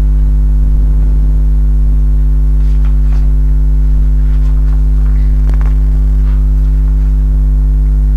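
Loud, steady electrical mains hum on the recording: a low buzz with evenly spaced overtones that does not change.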